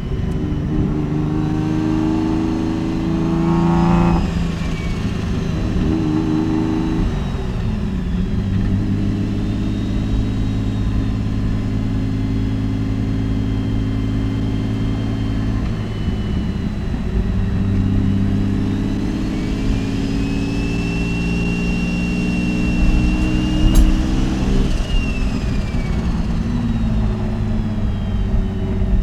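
Mitsubishi 3000GT VR4's turbocharged 3.0-litre V6 pulling under acceleration, its pitch rising and then dropping at gear changes about four and seven seconds in. It settles to a steady cruise, then pulls again with a rising turbo whistle that ends in a sharp click as the pitch falls.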